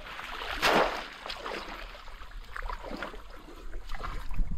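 A bamboo polo fish trap plunged into shallow pond water: one loud splash a little under a second in, then smaller splashes and sloshing as it is worked in the water.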